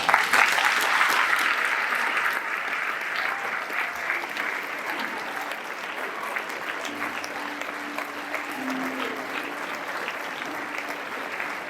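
An audience of students and staff clapping in a hall. The applause breaks out suddenly, is loudest for the first few seconds, then settles into steadier, slightly quieter clapping.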